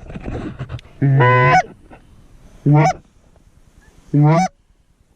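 Goose call blown by a hunter: three loud honks about a second and a half apart, each note breaking upward in pitch at its end. A low rustling shuffle comes in the first second.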